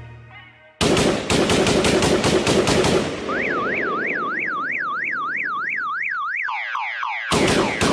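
Automatic gunfire sound effects at the close of a dancehall track. A rapid burst of shots begins about a second in. An electronic alarm warble sweeps quickly up and down, then gives way to a run of falling tones. Another rapid burst of shots comes near the end.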